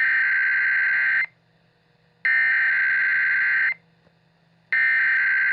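Emergency Alert System SAME header: three bursts of two-tone digital data signal, each about a second and a half long with about a second of silence between, sent as the coded start of an alert.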